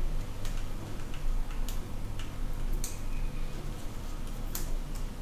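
A series of light, irregular clicks, roughly one every half second to a second, over a low steady hum.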